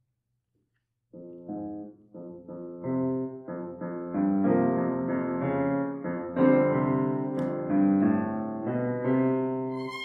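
Grand piano playing a passage of contemporary classical chamber music: after a silence, notes and chords come in about a second in and build louder over the next few seconds.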